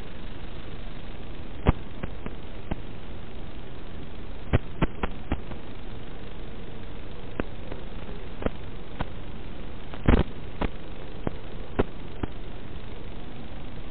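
Steady static hiss on the audio of an analog FPV video feed, crackling with scattered sharp clicks where the radio signal breaks up, the loudest about ten seconds in.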